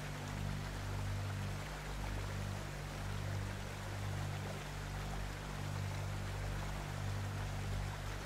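Background music: sustained low droning notes under a steady rushing hiss like running water.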